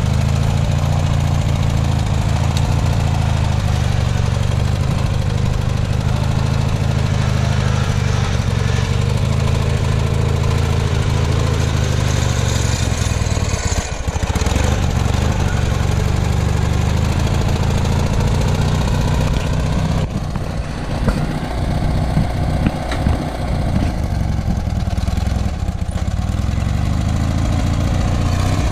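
Small engine of a modified off-road lawn tractor running under load as it crawls over logs and a dirt mound. The engine note dips briefly about halfway through and wavers unevenly, with a few knocks, in the last third.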